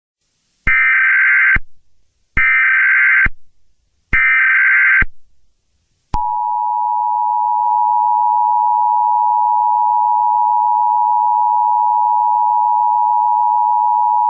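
Emergency Alert System tones: three bursts of SAME header data, each about a second long with short gaps, then the two-tone EAS attention signal, a steady dual tone held for about eight seconds.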